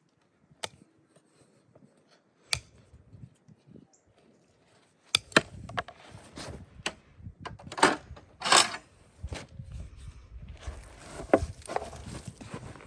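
Hand hoof-trimming tools cutting and scraping a horse's hoof: a few sharp snaps at first, then from about five seconds in a busy run of cutting snaps and scraping.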